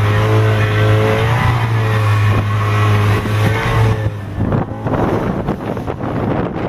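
A boat's outboard motor running steadily at speed, a constant low hum. About four seconds in, wind buffeting the microphone and water slapping and splashing against the hull come to the fore over the motor.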